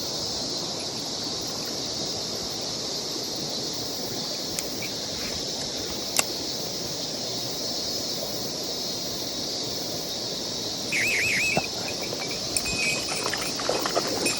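Mountain stream running steadily, under a constant high drone of insects. A single sharp click comes about six seconds in, and a brief warbling chirp near eleven seconds.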